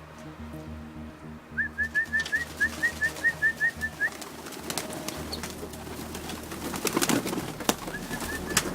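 Young racing pigeon squeaking: a quick run of about ten short, high peeps, about four a second, then a few more near the end. A couple of sharp clicks and rustling come about seven seconds in.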